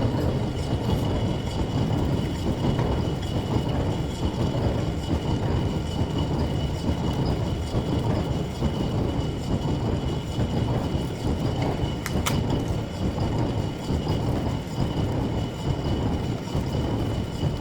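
Lathe running steadily with a dense mechanical rumble and a faint high whine, with one sharp click about twelve seconds in.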